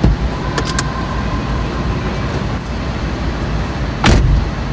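A car door opening with a few sharp latch clicks near the start, then thudding shut about four seconds in, over a steady low rumble.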